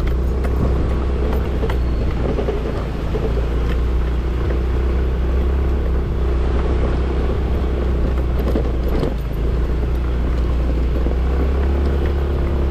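Motor scooter engine running while riding over a rocky gravel road, under a heavy low rumble, with scattered knocks and rattles from the rough surface.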